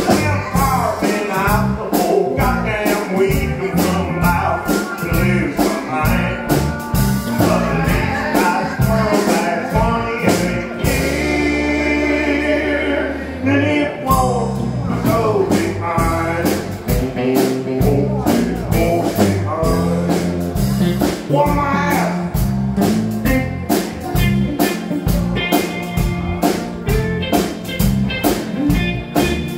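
Live country band playing: drum kit, bass, electric and acoustic guitars and pedal steel guitar, with singing. About eleven seconds in, the drums drop out and the band holds a long chord for about three seconds before the beat comes back in.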